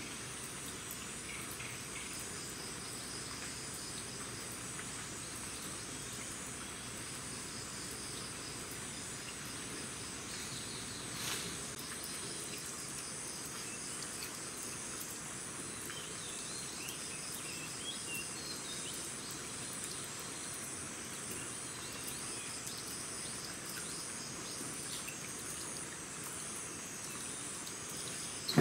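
Chorus of forest insects: several steady, pulsing high-pitched buzzes and trills at different pitches. A few faint bird chirps come through around the middle, and there is a single soft tap about eleven seconds in.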